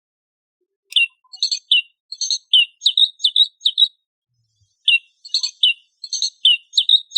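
Recorded song of a bluethroat, the voice built into a plush toy bird: two phrases of quick high chirps and short whistled notes, each about three seconds long, with a pause of about a second between them. The first phrase starts about a second in.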